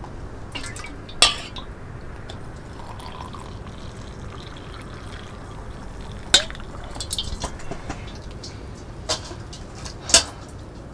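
Hot water poured from a metal kettle into a titanium camping mug. A few sharp clinks stand out about a second in, around six seconds, and twice near the end.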